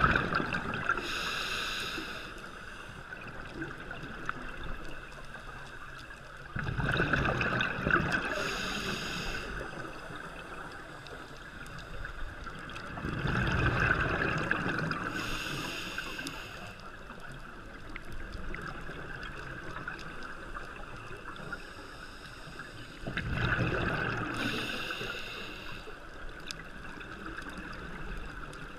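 Scuba diver breathing through a regulator underwater: four breaths, each a rush of exhaust bubbles with a hiss from the regulator. The breaths come about every six to seven seconds, with a longer gap before the last, over a low steady underwater wash.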